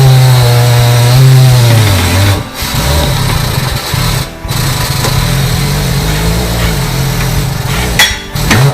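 Electric motor of a tyre-changing machine running the turntable with a steady hum, slowing and cutting out about two seconds in, then starting again and running with short stops until near the end.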